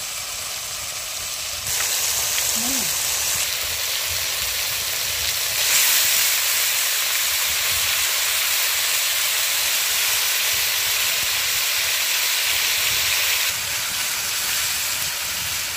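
Chicken pieces sizzling in hot oil in a kadhai, a steady frying hiss. It steps up sharply about two seconds in, is loudest from about six seconds, and falls back near the end.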